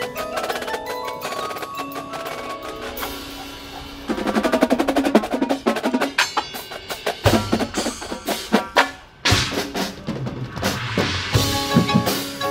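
Marching drumline of snare drums, tenor drums and TAMA bass drums playing in unison, with rapid snare rolls and stick strokes. Deep bass-drum hits come in about seven seconds in, followed by a brief drop and then a loud accented hit.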